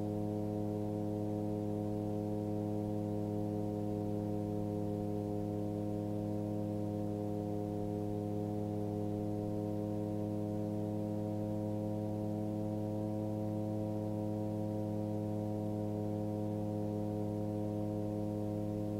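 Background music: a steady, sustained drone chord that holds without change.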